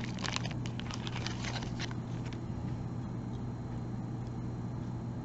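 Small clear plastic zip bag crinkling and clicking in the hands for about two seconds as a piece of jewelry is taken out, then only a steady low hum.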